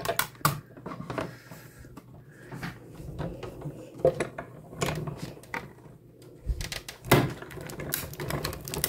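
Clicks and knocks of acrylic cutting plates and metal dies being handled and fed into a manual die-cutting machine, with a louder knock about seven seconds in.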